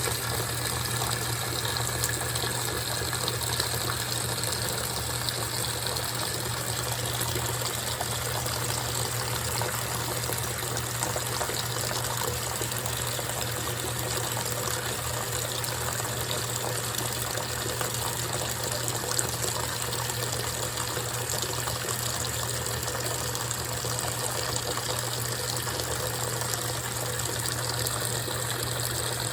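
GE top-load washing machine running with its lid open, water steadily rushing and splashing in the tub over a steady low hum.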